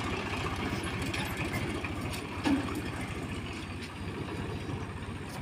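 Swaraj 735 FE tractor's diesel engine running at a steady low throttle as it pulls away a loaded trolley, slowly getting a little quieter. There is a single knock about two and a half seconds in.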